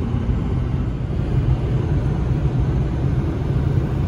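Steady low rumble of engine and tyre noise inside a moving vehicle's cabin, with a constant low hum.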